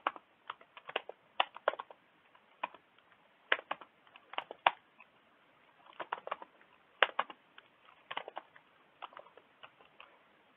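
Typing on a computer keyboard: irregular clusters of sharp key clicks with short pauses between them.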